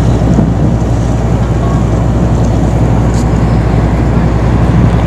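Ship's diesel engine running steadily: a loud, even low drone with a constant hum underneath.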